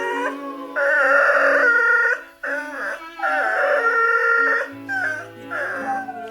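A dog's howls run through autotune, so her voice jumps between set notes instead of sliding, in several phrases over a music backing.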